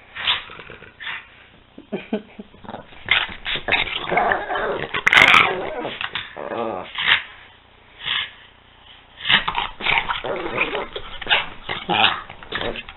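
A pug and a French bulldog play-fighting, growling at each other in short bursts, with a lull near the middle.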